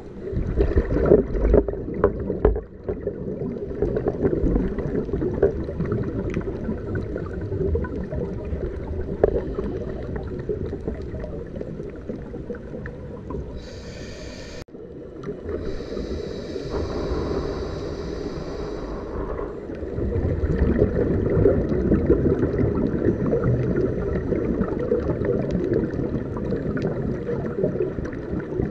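Scuba diver's regulator breathing underwater: long bubbling, crackling exhalations, with hissing inhalations about halfway through and again a few seconds later.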